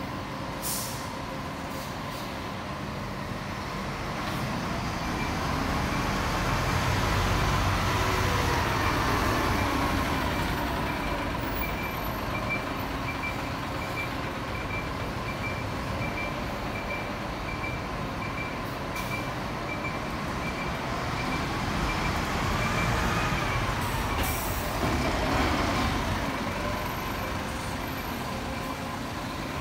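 Diesel highway coaches pulling away at low speed, engine note rising and falling as one and then another accelerate past. A high electronic beep repeats evenly through much of it.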